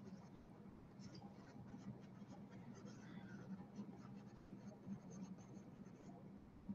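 Faint scratching and light ticking of a stylus writing on a pen tablet, over a low steady hum.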